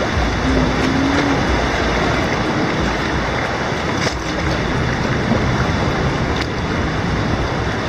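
Sea surging and churning inside a sea cave: a steady loud rush of water with a deep roar from the waves booming at the back of the cave. Kayak paddle strokes splash through it.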